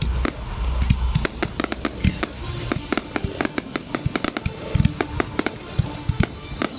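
Aerial fireworks display: a dense, irregular run of sharp cracks and bangs, several a second, with music playing underneath.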